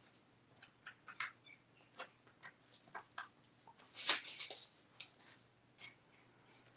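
Faint, scattered ticks of liquid epoxy dripping off the table edge onto plastic sheeting below, like light rain, with a brief louder rustle about four seconds in.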